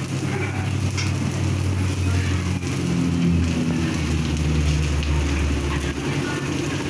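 Shredded cabbage and other vegetables sizzling as they are stir-fried and tossed in a wok over a gas burner, whose flame gives a steady low rumble underneath.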